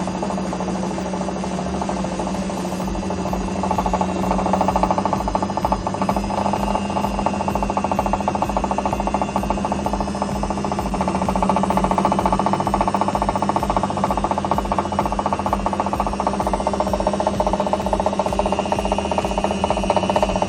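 IFB front-load washing machine drum spinning, with a steady hum and a regular low thumping rattle a few times a second that grows louder about four seconds in. This is the 'khad-khad' spin noise, often caused by a worn bearing or a drum fault.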